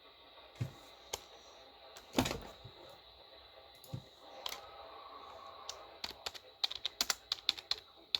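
Scattered light clicks and a louder thump about two seconds in, then a quick run of clicks, about five a second, near the end, over a faint steady high tone.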